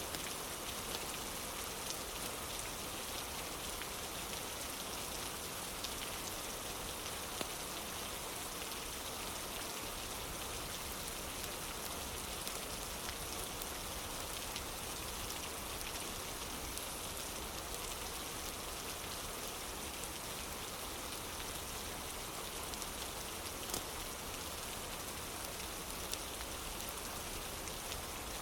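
Steady rain falling on a wooden porch, an even patter throughout, with a few sharp ticks here and there.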